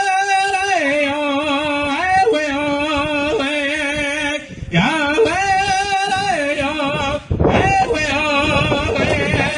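A man singing a Lakota Tokala (Kit Fox society) song in a high, wavering voice. There are two short breaks between phrases, about four and a half and seven seconds in.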